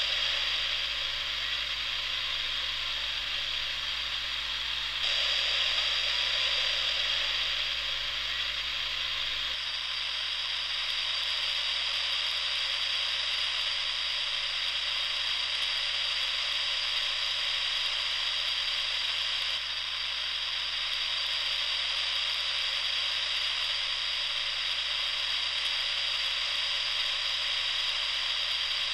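Steady hiss and static from a radio receiver tuned between stations, with no speech or music coming through. The noise changes abruptly a few times.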